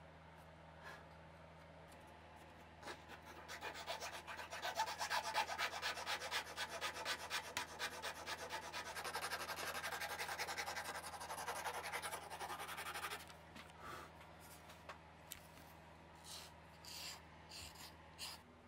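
A needle file rasping the edge of a thin wooden ornament cutout in rapid back-and-forth strokes. The strokes start about three seconds in and run for about ten seconds, then come as a few short, separate strokes.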